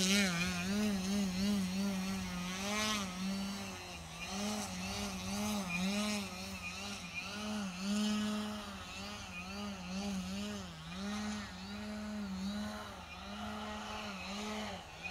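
Electric RC aerobatic plane's motor and propeller whining, the pitch swooping up and down every second or so as the throttle is worked to hold the plane in a nose-up hover.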